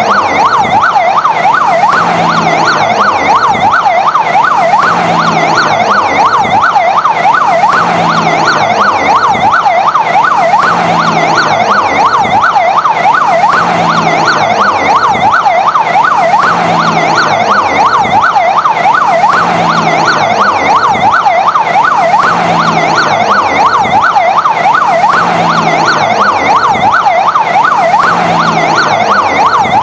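Fire engine siren sounding in a fast yelp, its pitch sweeping up and down several times a second without a break.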